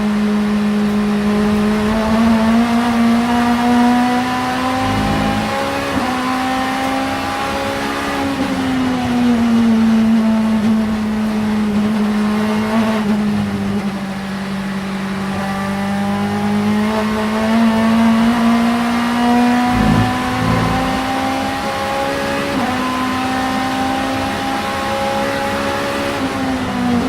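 Vauxhall Vectra Supertouring race car's 2-litre four-cylinder engine running hard without a break, its note climbing and easing off as it is driven, with a few sudden drops in pitch along the way.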